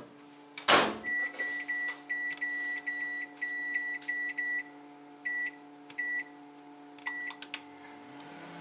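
Door of a CDA built-in combination microwave oven shut with a knock about a second in. Then its control panel beeps in a quick run of high beeps and a few single beeps as the buttons set the oven temperature, over a steady low hum.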